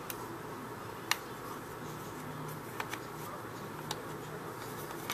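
A few light, sharp clicks over a steady low hiss: a Torx T8 screwdriver working at a stubborn screw in the plastic shell of an Xbox 360 controller.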